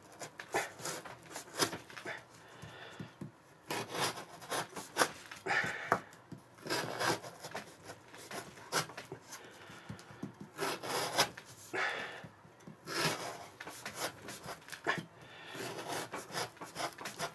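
M390 steel knife blade sawing back and forth against a 22 mm jute rope, a string of short, irregular rasping strokes. The blade won't bite into the rope at all: its edge is dulled.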